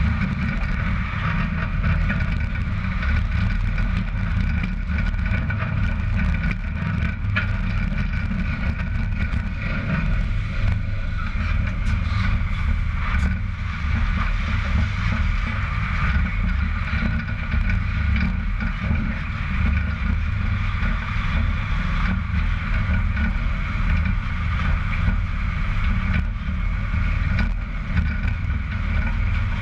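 Steady low rumble of the trailer's tyres rolling on the road surface, with wind buffeting the microphone, heard from a camera on the side bumper of a wide low-bed trailer under tow.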